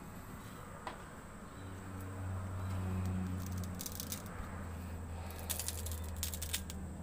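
Brittle crackling and rattling as a peeled, fire-roasted plant stalk is handled and squeezed for its juice, in short bursts about four seconds in and again near six seconds. Under it a low steady hum swells about two seconds in.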